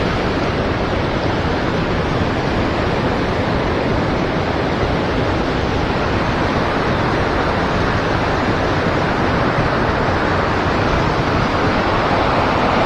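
Steady rush of river water flowing around a wading angler, a loud, even noise that swells slightly near the end.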